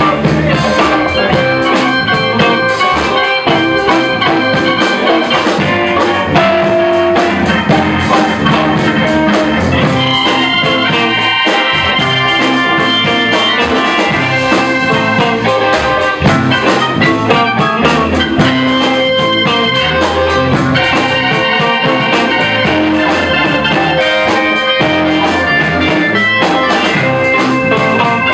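Live blues band playing an instrumental passage: electric guitars and bass guitar over a drum kit and keyboard.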